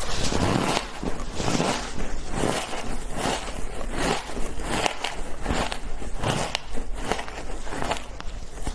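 Frozen shaved ice being bitten and chewed close to a lapel microphone: a steady run of crisp crunches, about two a second.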